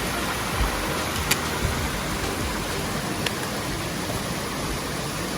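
Mountain stream rushing over rocks in a steady wash of water noise, with two sharp clicks a couple of seconds apart.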